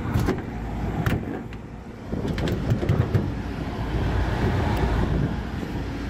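A few clicks and knocks as the sheet-metal access panel of a rooftop packaged HVAC unit is handled and opened, over a steady low rumble.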